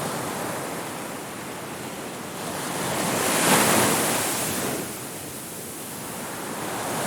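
Ocean waves on a beach: surf swells to a peak about halfway through as a wave breaks, its wash dies away, and the next wave starts building near the end.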